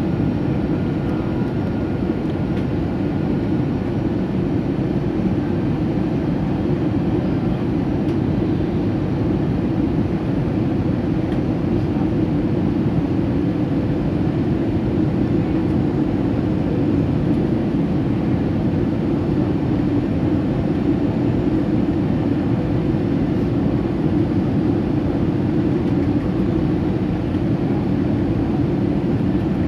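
Steady cabin noise inside an Airbus A320: engine and airflow noise running evenly as a low rumble with a faint hiss above it.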